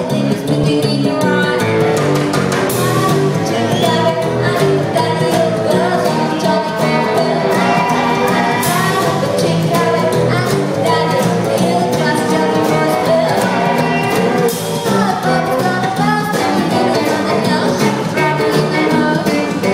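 Live rockabilly band playing at full volume: a woman singing over slapped upright double bass, a drum kit with a steady beat and a hollow-body electric guitar.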